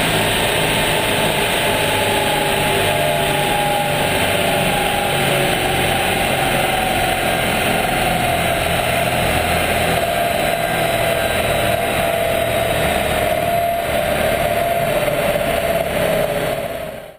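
Opel Corsa D's turbocharged 1.4 litre four-cylinder engine running on a chassis dynamometer, loud and steady, with a whine that slowly falls in pitch. The sound fades out at the very end.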